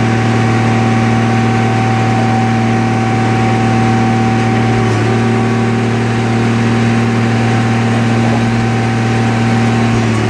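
Car crusher's engine, which drives its hydraulic pump, running steadily at a constant speed with a steady hum and no change in pitch.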